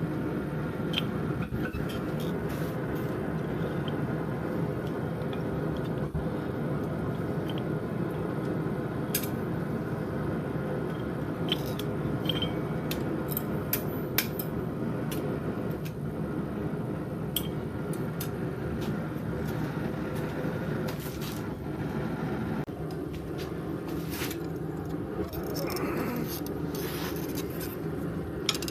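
A steady mechanical drone with scattered light clicks and scrapes over it; the drone changes in tone about three-quarters of the way through.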